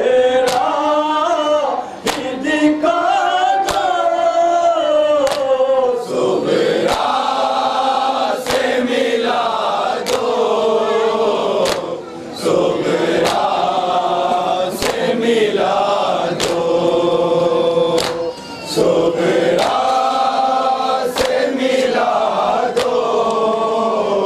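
A group of men chanting a Shia nauha lament in unison, with hand slaps on the chest (matam) keeping a steady beat a little more than once a second.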